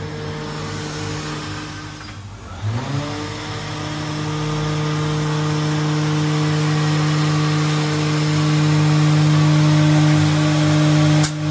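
Balestrini Pico round-tenoning machine's cutter-head motor spinning up about two seconds in, rising in pitch, then running with a steady hum that grows a little louder later on.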